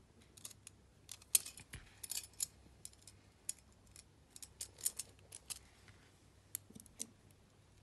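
Faint, irregular small metal clicks and clinks from VEX metal strips, an aluminum plate, screws and nuts being handled and fitted together by hand.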